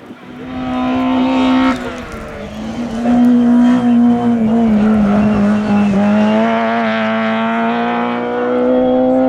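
Race car engine pulling hard under load up the course, held high with a gear change about two seconds in, then climbing again and held near the top of its revs.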